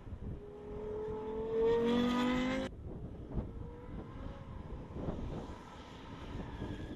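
Lexus LFA's 4.8-litre V10 accelerating, its engine note rising steadily in pitch for about two seconds before cutting off abruptly. A fainter engine note and rumble follow.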